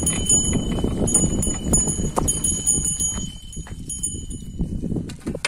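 Pair of bullocks pulling a harrow through dry, cloddy soil: a steady irregular crunching and scraping of clods and hoof steps, which eases off after about three seconds.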